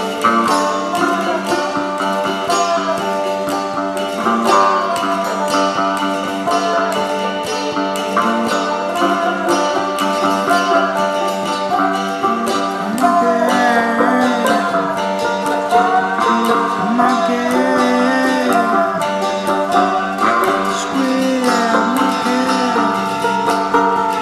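Cigar box guitar and mandolin banjo playing a song together: plucked strings in a steady picked rhythm, with some notes bending and gliding.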